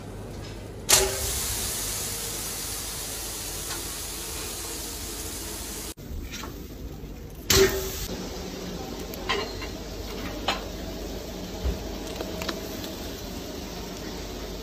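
Marinated fish laid on a hot charcoal grill grate, sizzling sharply at first and slowly dying down. A second sudden sizzle follows as it is turned onto its other side, with a few light clicks after.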